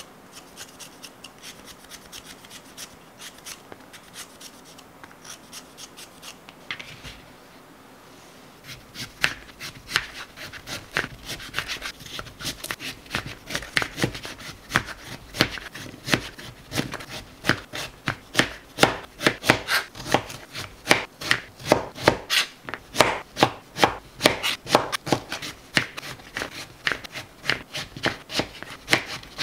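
Raw sweet potatoes being peeled with a hand peeler, faint quick scraping strokes. From about nine seconds in, a kitchen knife chops them into chunks on a cutting board, with sharp, regular chops two or three times a second.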